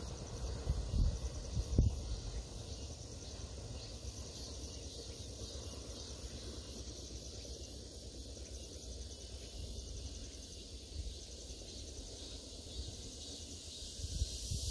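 Insects chirping in a high, evenly pulsing rhythm of about three pulses a second, over a faint low rumble, with a few low thumps near the start.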